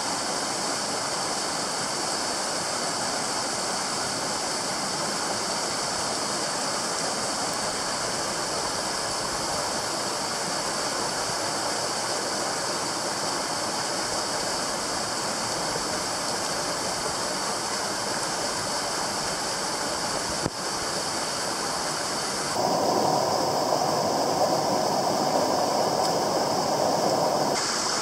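Rushing water of a small mountain stream pouring over a cascade between boulders, a steady splashing rush. It grows louder and fuller for several seconds near the end.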